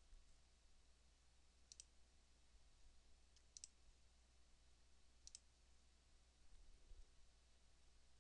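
Faint computer mouse clicks, four of them at roughly two-second intervals, each a quick press-and-release double click, over a low steady hum.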